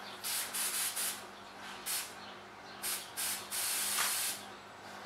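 Aerosol spray can sprayed in a series of short hissing bursts, about seven in all, the last one longer at almost a second.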